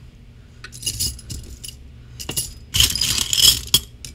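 Small metal gears and embellishments clinking and jingling against each other as a hand rummages through a tray of them. A short bout of clinks comes about a second in, then a louder, busier bout from about two and a half seconds in.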